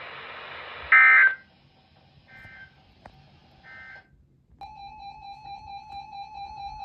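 Weather radio hiss, then the EAS end-of-message digital data bursts: a loud, buzzy burst about a second in, followed by two fainter repeats. After a short silence a steady electronic alert tone starts a little past halfway.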